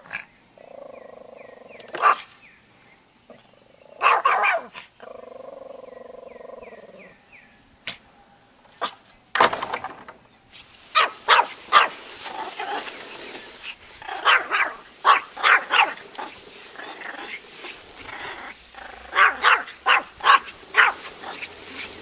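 Small dog barking repeatedly and excitedly at a lawnmower. A few spaced barks come first, then quick bursts of several barks at a time in the second half.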